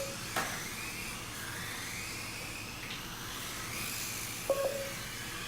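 Electric motors of several Kyosho Mini-Z 1/28-scale RC cars whining as they race, the pitch rising and falling as the cars accelerate and brake through the corners. A short beep sounds about four and a half seconds in.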